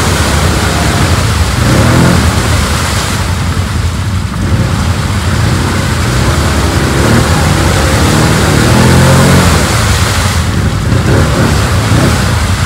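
Quad bike engine revving up and down under load, its wheels spinning and churning through deep mud and water as the stuck machine is pushed.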